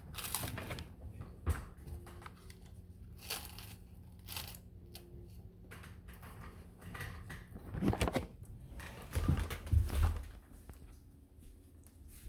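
Scattered small rustles, crinkles and light clicks, with a faint steady hum that stops about seven seconds in; a few louder low thuds come around eight to ten seconds in.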